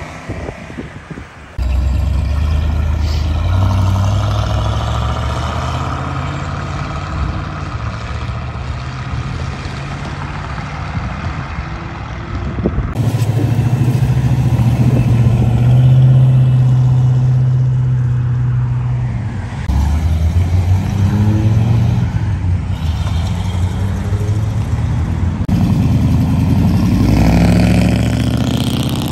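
Engines of classic American muscle cars rumbling as they drive by and pull away one after another, a deep, steady exhaust note, briefly rising as one accelerates. The sound changes abruptly several times as one car gives way to the next.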